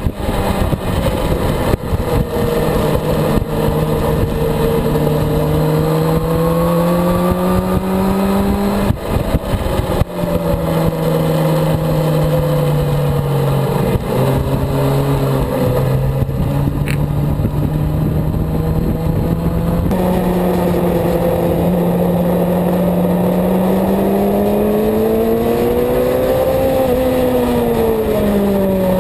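Suzuki GSX-R750 inline-four sportbike engine under hard acceleration, heard over wind rush. The engine note climbs, breaks twice for quick upshifts about a third of the way in, eases back, then climbs again and falls away near the end as the throttle closes.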